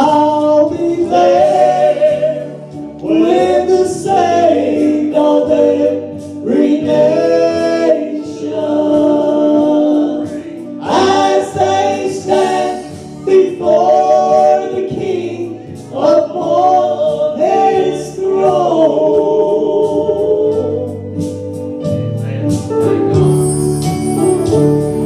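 Voices singing a slow gospel song, with instruments playing along. Near the end the singing thins out and the bass and instruments carry on.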